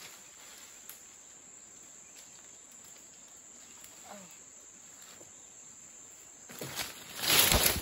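Steady high-pitched insect drone of the forest, with a faint short call about four seconds in. Near the end a loud rush of noise lasting about a second takes over, the loudest sound.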